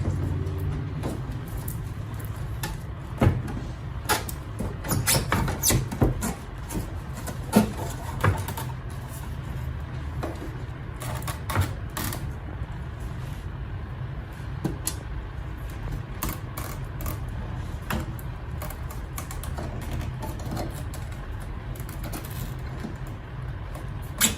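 Scattered metal clicks, knocks and scrapes as the blower housing of a self-contained air conditioner is turned by hand in its loosened hose clamp, over a steady low hum.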